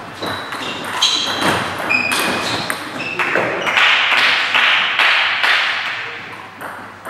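Table tennis balls clicking and pinging as they bounce on tables and are struck by bats, many scattered knocks from several tables in a hall. About three and a half seconds in comes a couple of seconds of rushing noise.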